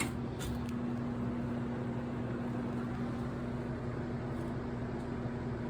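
Vintage Hunter box fan, sold through Zayre, running steadily: an even motor hum with a constant tone under the rush of moving air.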